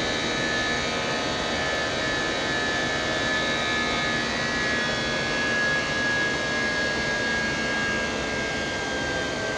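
Airbus A319's jet engines and the rushing air heard inside the cabin during the climb after takeoff: a steady drone with a thin high whine that sinks slightly in pitch.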